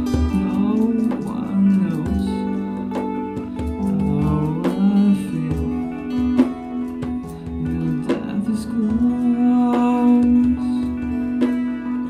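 Guitar music played live: plucked and strummed guitar in an instrumental passage of a song, with sustained notes and regular picked strokes.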